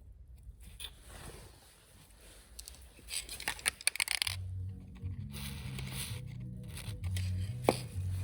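A short burst of light clinks and rattles about three seconds in, then background music with a stepping bass line comes in about a second later, with one sharp click near the end.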